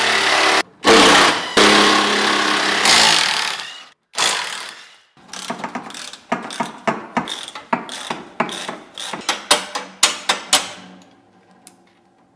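A cordless power wrench runs in several short bursts for the first few seconds, undoing exhaust bolts. Then a hand ratchet clicks in strokes that come quicker and quicker, stopping about a second before the end.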